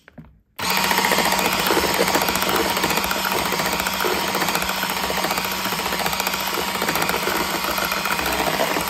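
Vestel electric blender switched on about half a second in, then running steadily with an even hum as it beats pancake batter.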